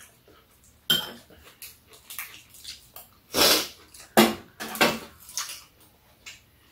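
Eating sounds at a metal tray: metal chopsticks and spoons clicking against bowls in a few separate sharp sounds, with a longer noisy mouth sound of eating about three and a half seconds in.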